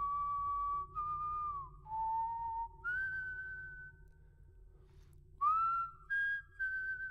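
Slow live melody in a high, pure, whistle-like tone: long held notes joined by slides, dipping lower about two seconds in, rising again about three seconds in, then breaking off; after a pause a note swoops up into place and short notes follow near the end. A faint low steady drone lies underneath.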